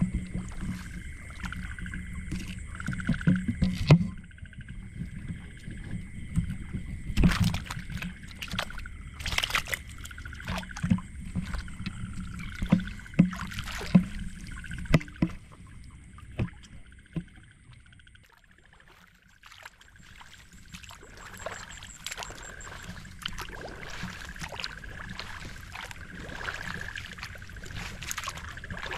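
Water splashing and sloshing with scattered knocks, busiest in the first half and quieter near the end.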